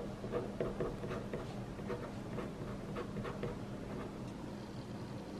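Pen scratching on a paper notepad in short, irregular strokes, faint, over a low steady room hum.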